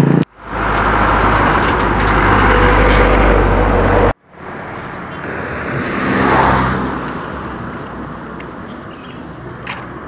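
Road traffic with a steady engine hum, broken by two abrupt cuts; a vehicle passes about six and a half seconds in, swelling and then fading.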